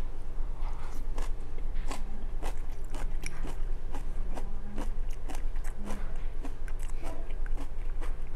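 A person chewing a mouthful of stir-fried cabbage and rice close to the microphone, about two chews a second, over a steady low hum.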